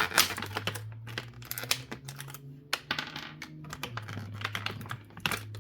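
Plastic packaging rustling and clicking in rapid, irregular handling as small action-figure accessories are pulled out of a plastic tray.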